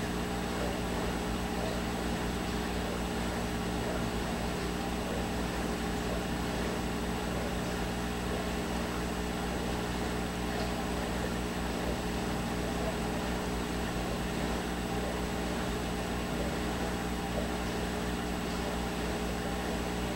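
Aquarium air pump running with a steady low hum and a light hiss, supplying the airstone that keeps the eggs tumbling.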